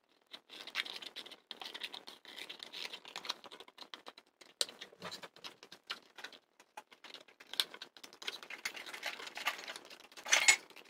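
Scissors snipping through a small paperboard milk carton: an irregular run of sharp clicks and scraping cuts, with the carton's cardboard rustling and creasing as it is turned in the hands. A louder crackle comes near the end.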